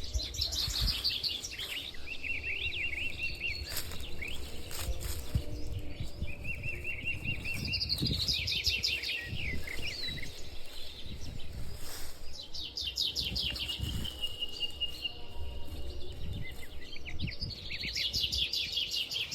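A songbird singing: every few seconds it gives a burst of quick high notes followed by a lower, wavering trill, over a low rumbling background.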